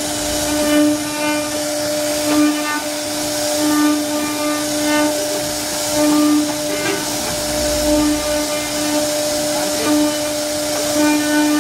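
CNC router spindle whining steadily as its bit carves a relief into a wooden door panel, with a hiss of cutting. The whine swells every second or so as the cutter bites along the pattern.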